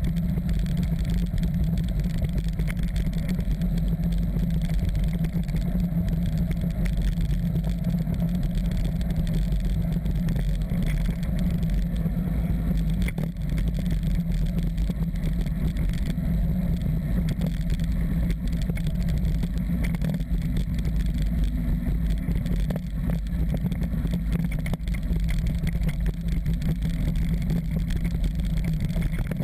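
Off-road motorcycle engine running steadily along a dirt track, with wind rumbling on the camera microphone.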